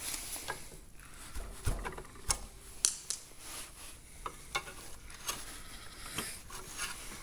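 Pliers working at a pin on a Centurion tank's steel steering brake shoe clamped in a vise: a scratchy scraping with irregular small metal clicks and ticks, a few sharper ones through the middle.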